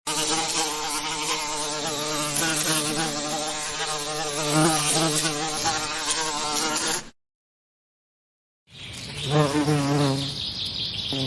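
Bees buzzing: a steady, pitched buzz that wavers slightly, cutting off abruptly about seven seconds in. After about a second and a half of silence, a second stretch of buzzing fades in and swells.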